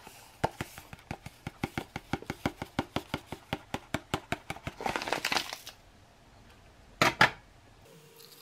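An opened hot-cocoa sachet being tapped rapidly, about six taps a second, to shake the powder out into a drinking glass, followed by a brief crinkly rustle of the packet. Two sharp knocks come near the end.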